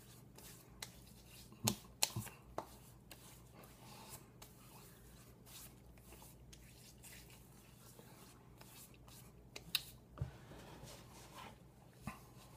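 Hands patting and rubbing aftershave onto freshly shaved skin of the face and neck: soft scattered pats and skin rubbing, with a few sharper slaps about two seconds in and again around ten seconds in.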